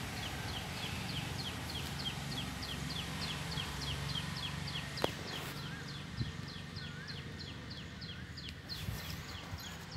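A bird calling steadily in a fast run of short, sharp down-slurred chirps, about three or four a second, at two alternating pitches. A few softer wavering whistles from another bird come in around the middle.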